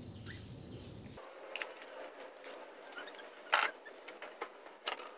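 Thread-seal (PTFE) tape being wound by hand onto the threads of a chrome double water tap: light rustling and handling sounds with short high-pitched squeaks, and two sharp clicks from the tap being handled, about three and a half seconds and five seconds in.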